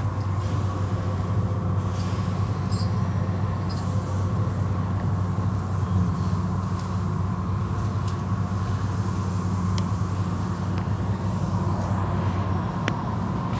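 Automatic tunnel car wash machinery running: a steady low hum from the wash motors under the hiss of water spray, with cloth brushes and curtain strips working over a car and a few sharp clicks.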